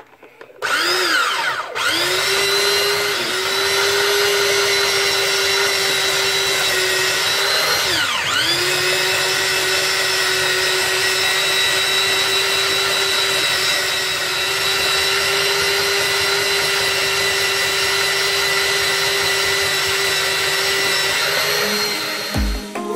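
Electric rotary grater's motor spinning up and running steadily with a high whine while its spinning drum cone grinds dry fruits into powder. The pitch sags and recovers about eight seconds in as the load bites, and the motor winds down and stops just before the end.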